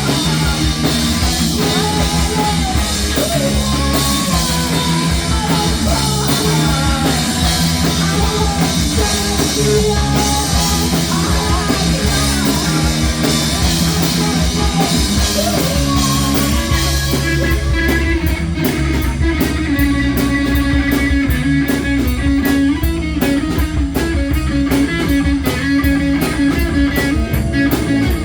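Rock band playing live: electric guitar, bass and drum kit. About two-thirds of the way through, the drums settle into a steady run of evenly spaced hits.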